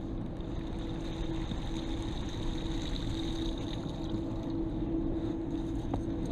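Steady outdoor background noise: an even hiss with a constant low hum, and no distinct events.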